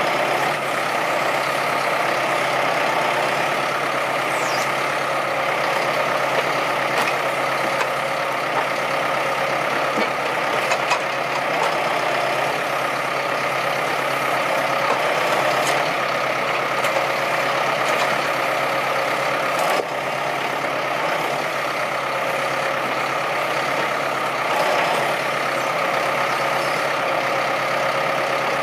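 Valtra A124 tractor's engine running steadily while it drives the hydraulics of a forestry trailer crane loading logs. A few short knocks come through as the logs are laid onto the load.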